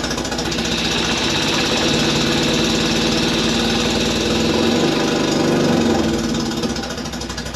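Fiat X1/9's inline-four engine running with the car in gear on jack stands, driving the rear hub, still untuned and a bit rough. The engine note rises about half a second in, climbs higher around five seconds in, then eases off near the end.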